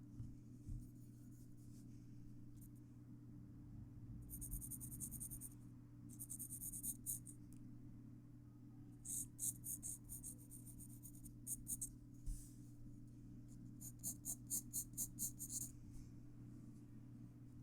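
Graphite pencil scratching on paper in several bursts of quick back-and-forth strokes, with short pauses between them, over a faint steady low hum.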